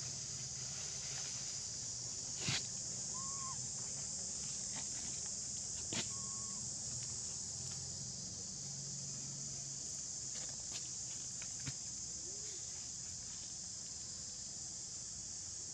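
Steady high-pitched drone of insects in tropical vegetation, with a few sharp clicks about two and a half and six seconds in and a couple of brief faint chirps.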